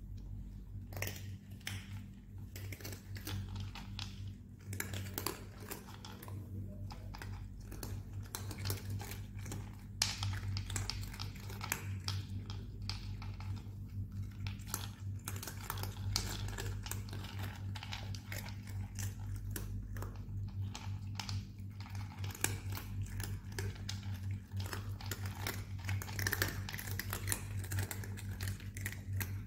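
Several cats crunching dry kibble: a dense, irregular run of crisp crunches and clicks over a steady low hum.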